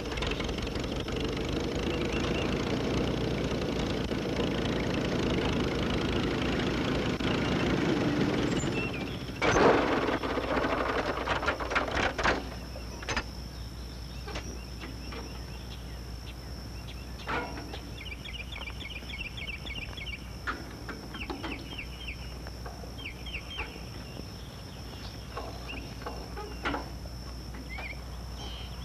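Small farm tractor engine running steadily for about nine seconds, broken off by one heavy crash, followed by scattered clicks. Afterwards birds chirp in short runs over a steady high whine.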